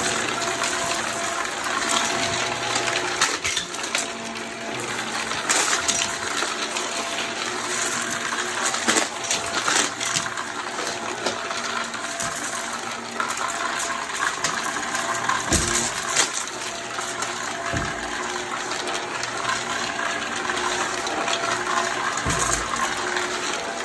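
Vacuum cleaner running steadily as it is pushed, with scattered sharp clicks of bits of debris rattling up into it and a couple of low thumps.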